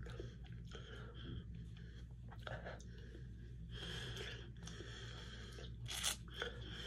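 A person chewing a mouthful of chocolate-coated ice cream cone with soft mouth sounds and breaths. Two sharp clicks come near the end.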